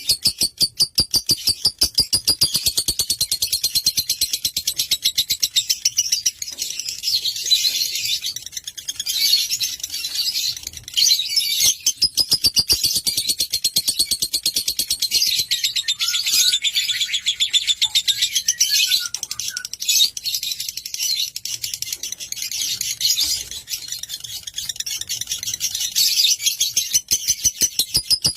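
Lovebird singing a long, rapid chattering trill of high chirps (the 'ngekek' song), broken only by a few brief pauses.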